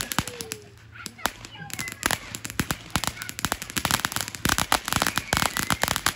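Consumer ground firework going off, spraying sparks with a rapid, dense crackle of sharp pops that thickens about two seconds in.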